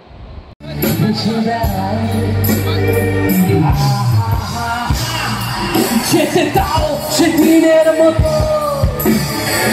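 Live pop concert: a singer singing with a band over a loud PA, recorded from among the audience. It starts abruptly about half a second in, replacing faint crowd noise.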